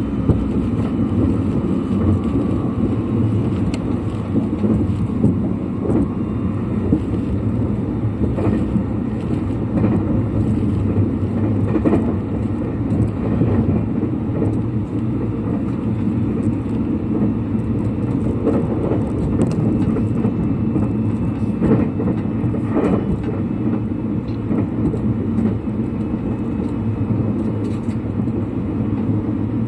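Thunderbird limited express electric train running at speed, heard inside the passenger car: a steady low rumble of wheels on rails and car body, with a few faint clicks and knocks.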